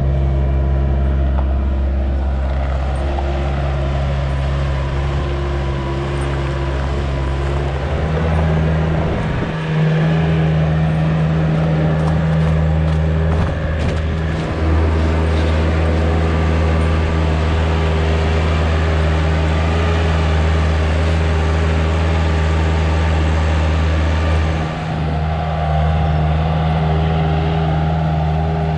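Bobcat 773 skid-steer loader's diesel engine running under way, its engine note stepping up about a third of the way in and dipping briefly near the end as the throttle changes.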